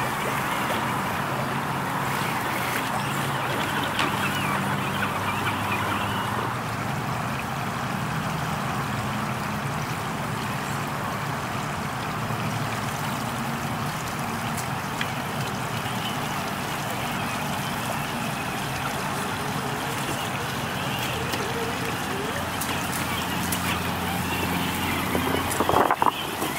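Steady rush of water with the electric motor of a Traxxas TRX-4 Sport RC rock crawler humming and shifting in pitch as it wades and crawls through a shallow stream. There is a brief louder splash near the end.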